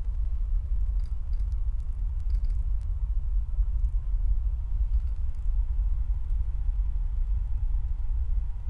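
A steady, deep rumbling drone, the kind laid under horror scenes as sound design. A few faint clicks come in pairs, about a second in, again a second later and again about five seconds in.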